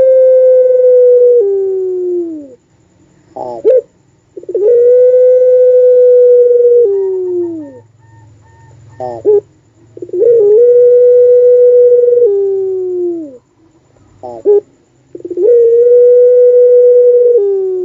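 Puter pelung dove (a long-voiced Barbary dove) cooing: long, held, wolf-like coos that hold a steady pitch for two to three seconds and then slide down at the end. Each is preceded by a short, rapid stuttering note, and the call repeats about every five to six seconds.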